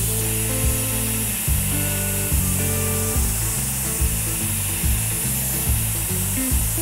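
Background music with a steady beat over the constant high hiss of a Cold Jet dry ice blaster blowing compressed air and dry ice pellets against the aluminium airframe.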